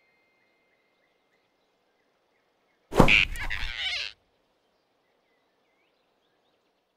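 A sudden, loud swoosh sound effect about three seconds in, lasting just over a second, with a falling pitch and a deep rumble under it.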